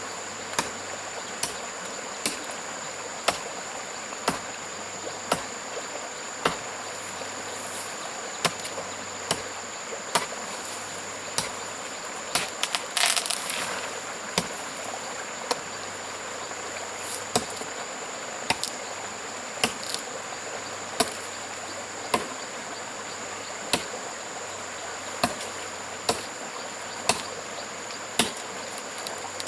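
Sharp knocks of a hand tool striking wood, roughly once a second, with a quicker cluster a little before halfway. A steady high insect drone runs underneath.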